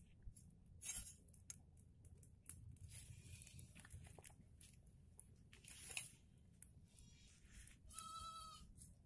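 Near silence with faint scattered clicks and rustles. Near the end comes one short, high, pitched call lasting about half a second.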